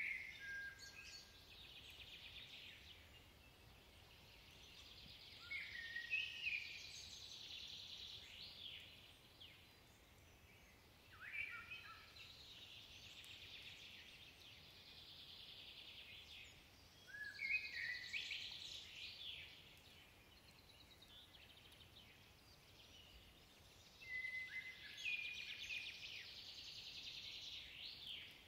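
Eurasian blackbird singing: five phrases spaced about six seconds apart, each a short low fluted warble followed by a high, squeaky twitter.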